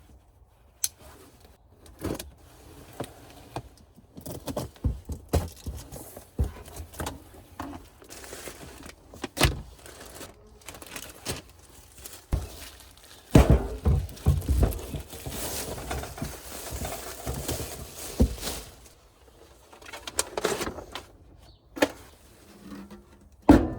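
A boxed Blackstone 17-inch griddle being unpacked: scattered knocks and clicks of parts and packaging being handled, with a longer stretch of rustling and scraping about halfway through.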